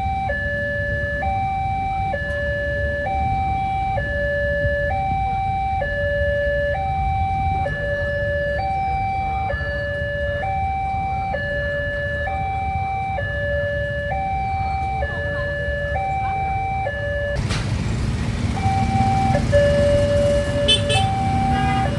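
Railway level-crossing warning alarm sounding a steady electronic two-tone high-low pattern, changing tone about once a second. About seventeen seconds in, a sudden louder rush of noise comes in; the alarm breaks off for about a second, then carries on.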